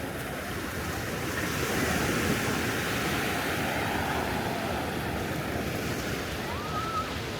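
Ocean surf washing on the beach in a steady rush, swelling louder about two seconds in as a wave comes in, with wind on the microphone.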